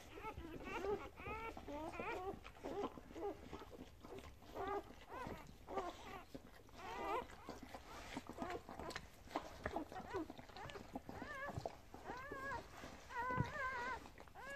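Newborn springer spaniel × kelpie puppies squeaking and crying in a quick series of short, wavering calls, with a few longer, steadier cries near the end.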